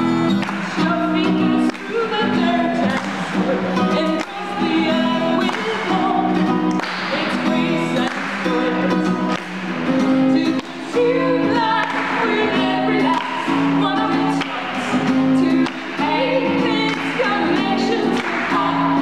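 Live acoustic band: a steel-string acoustic guitar strummed in a steady rhythm while two women sing a melody together over it.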